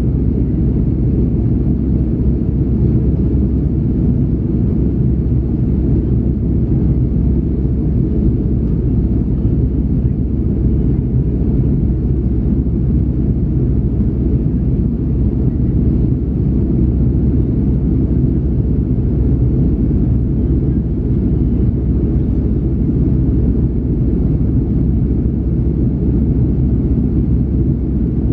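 Steady low rumble inside the cabin of an Airbus A330-300 climbing after takeoff: its two Pratt & Whitney PW4168A turbofans and the airflow over the fuselage, even throughout.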